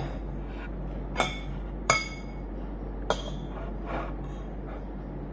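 Metal fork clinking against a ceramic bowl while food is scooped up: four short, light clinks about a second apart.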